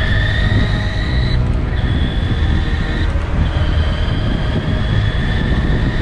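High-powered e-bike's electric motor whining steadily under throttle. The whine cuts out briefly about a second and a half in and again around three seconds, then comes back, over heavy wind rumble on the microphone from riding at speed.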